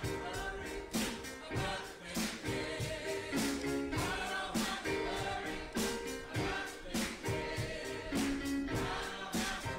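Gospel choir singing with a band, held notes over a steady beat of sharp hits.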